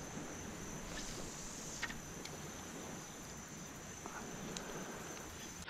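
Quiet outdoor ambience with a steady high-pitched drone and a faint tick about two seconds in.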